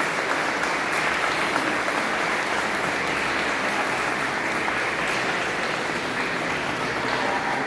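Church congregation applauding, a steady, continuous clapping.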